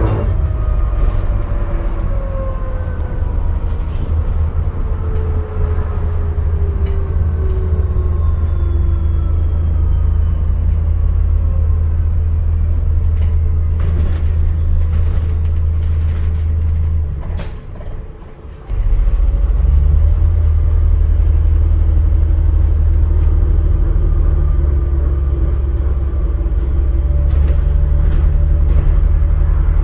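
Onboard sound of an ADL Enviro400 MMC hybrid bus: a low drivetrain rumble with whines that fall in pitch as the bus slows, and several sharp clicks. About two-thirds of the way in the rumble drops away for a second or so, then comes back louder. Near the end a whine rises again as the bus pulls away.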